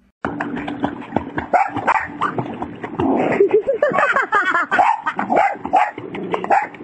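A dog barking and yipping in quick, excited bursts while it swims and snaps at the water, over splashing.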